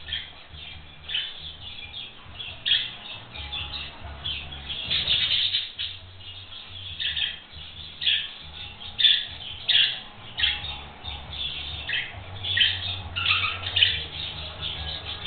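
Budgerigars chirping and squawking in quick, irregular bursts, several calls a second, some louder than others. A low steady hum sits underneath.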